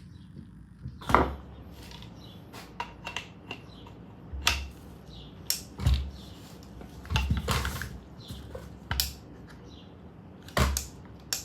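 Irregular metallic clicks and knocks of AR-15 rifle parts being handled and fitted together during reassembly, with a few heavier thuds among lighter ticks.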